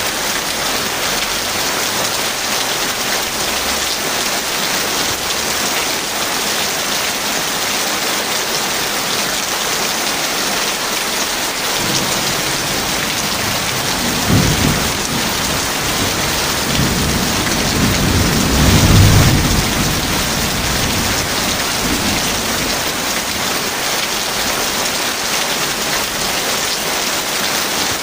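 Heavy steady rain with a thunderclap about halfway through: a sharp crack, then a longer rolling rumble that swells and fades over several seconds.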